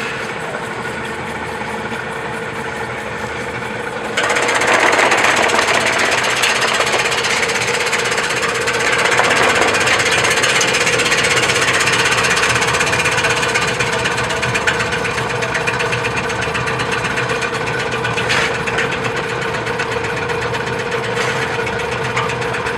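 A lemongrass, scallion and cilantro slicing machine running with a steady motor hum; about four seconds in it turns louder and harsher, the sound of produce going through the blades, and keeps cutting with that rattling noise.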